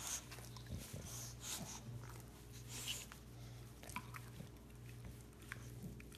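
English bulldog chewing and mouthing at its own paw: faint scattered clicks of teeth and wet mouth sounds, with a few short breaths.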